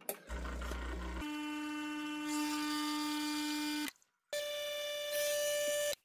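A button clicks on a Breville espresso machine, then its pump runs with a steady buzzing hum as it pushes water with a descaling tablet dissolved in it through the machine. The hum cuts off abruptly about four seconds in and comes back at a higher pitch.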